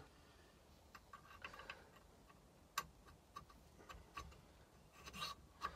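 Faint, irregular light clicks and taps of an engine valve and its suction-cup lapping tool being handled at the valve seat of a 3 horsepower Briggs & Stratton flathead engine, during valve lapping with grinding paste.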